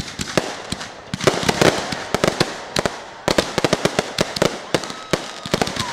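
Fireworks grand finale barrage: aerial shells bursting in rapid, overlapping reports, several a second, with clusters of crackling in between.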